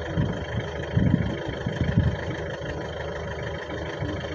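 Wind buffeting the microphone, an uneven low rumble that comes and goes in gusts, over a faint steady hum.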